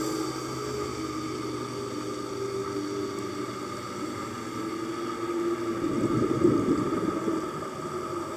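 Underwater ambience picked up by a dive camera in its housing: a steady hum over a hiss, with a louder rush of noise swelling about six seconds in.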